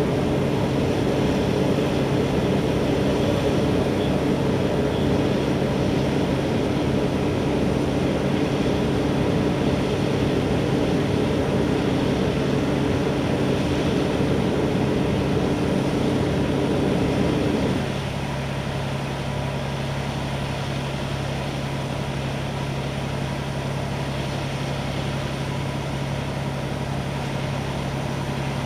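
Fire apparatus engines running steadily with a low hum under them, as water is pumped onto the burning yachts. About two-thirds of the way through, one layer of the drone cuts off abruptly, leaving a lower, quieter steady hum.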